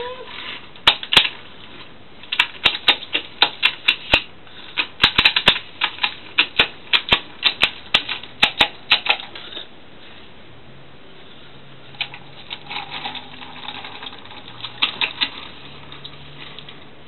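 Toy train cars clicking and clacking as hands handle them and push them along a wooden window sill: a quick, irregular run of sharp clicks for the first nine seconds or so, then a few scattered clicks.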